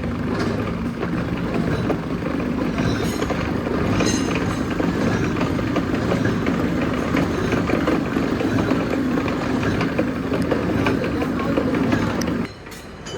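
A vintage milling machine running: a steady mechanical hum with a dense, even rattle. It drops away sharply near the end.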